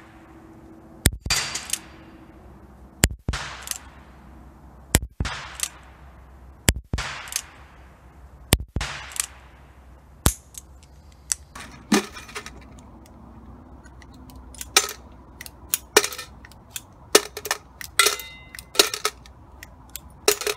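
Ruger Blackhawk single-action revolver firing six shots of .38 reloads, about two seconds apart, each followed by a trailing echo. After the sixth shot comes a run of lighter metallic clicks and clinks as the revolver is unloaded and reloaded.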